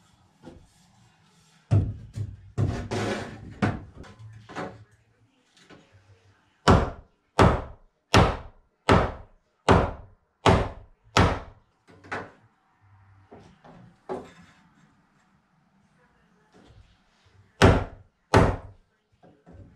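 Hammer blows on wood, driving a temporary post under a sagging floor beam to jack it up. There is a clatter of knocks first, then a steady run of about nine strikes roughly two-thirds of a second apart, and two more strikes near the end.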